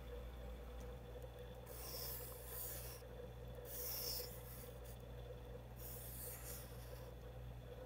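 Pencil scratching across paper in three drawn strokes, each about a second long, over a faint steady hum.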